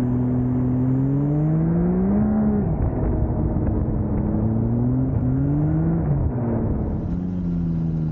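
Yamaha snowmobile engine running under way, its pitch climbing and dropping back twice as the throttle is worked, about two and a half and about six seconds in, and steady in between.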